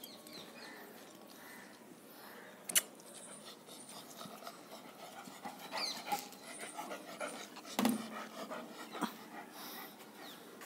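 A dog panting close by, with a sharp click about three seconds in and a louder thump near eight seconds.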